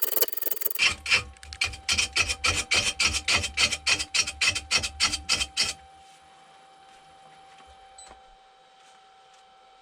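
Lathe gouge cutting a spinning, out-of-round poplar log, catching on the high side in quick, even strikes about four times a second. About six seconds in the tool comes off the wood and only the lathe's faint, steady motor hum is left.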